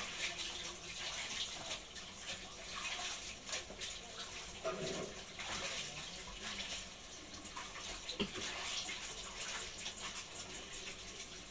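Swordfish fat and meat scraps frying in hot oil in a pan: a steady sizzling hiss with scattered crackling pops, and one sharper click about eight seconds in.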